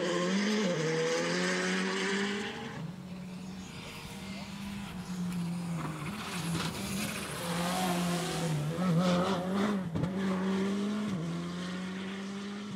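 Skoda Fabia R5 rally car's turbocharged 1.6-litre four-cylinder engine driven hard on a tarmac stage, holding high revs with brief dips in pitch as the driver lifts and shifts. Tyre noise and scrabbling come through in the corners.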